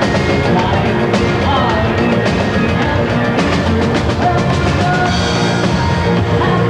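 Loud band music with a driving drum kit beat and bass, playing steadily.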